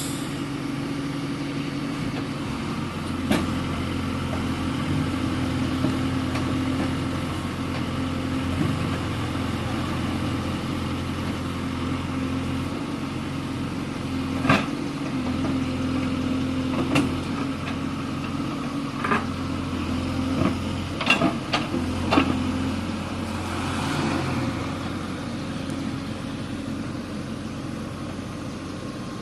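Heavy diesel engine running steadily at low revs, with a few sharp metallic knocks, several of them bunched together about three quarters of the way through.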